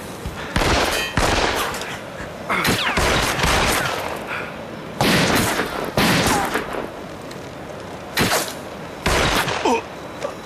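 Gunfire: about seven loud gunshots spaced irregularly over ten seconds, some followed by a short falling whine.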